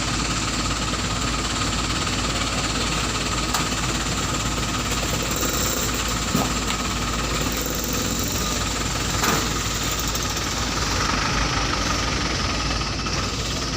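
An engine idling steadily, with a few faint ticks.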